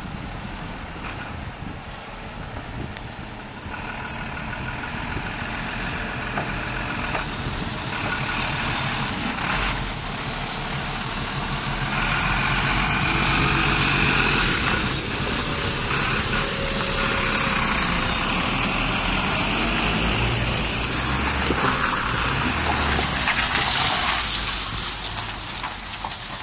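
Iveco 480 Euro 5 truck's diesel engine pulling away and driving past, with a high turbocharger whistle over the engine that rises and falls in pitch as the throttle changes. It grows louder to a peak as the truck passes in the middle and fades near the end as it moves off.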